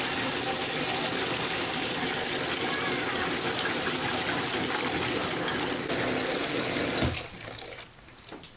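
Cold tap water pouring from a faucet into a plastic bucket of laundry detergent, frothing it into suds. The flow cuts off suddenly about seven seconds in with a low knock, followed by a few faint clicks.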